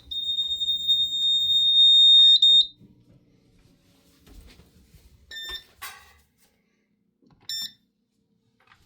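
Fire alarm sounder giving a loud, steady high-pitched electronic tone that cuts off abruptly after under three seconds, followed by two short chirps a couple of seconds apart. This is the faulty device failing to keep sounding.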